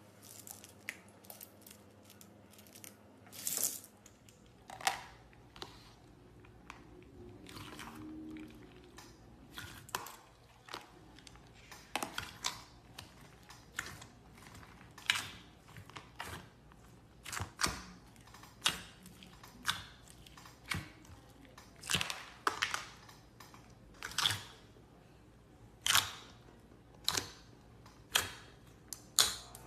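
Clear slime being pressed and poked, giving a series of sharp wet pops and clicks from trapped air, about one a second.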